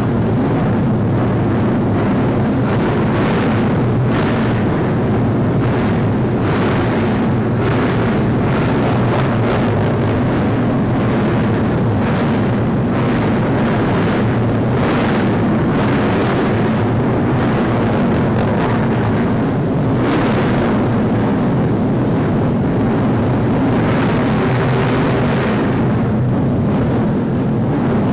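Cub Prix racing underbone motorcycles running hard on track, their engines and exhausts making a loud, steady, dense drone with frequent brief surges.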